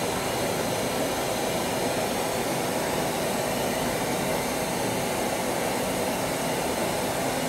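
Steady pink noise test signal played through the sound system from the measurement software's signal generator, used to measure the amplifier's phase response and latency with its FIR processing switched on.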